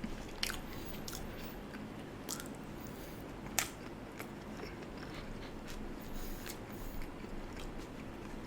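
Close-miked chewing and mouth sounds of a person eating animal fries, with scattered small clicks and smacks and one sharper click about three and a half seconds in.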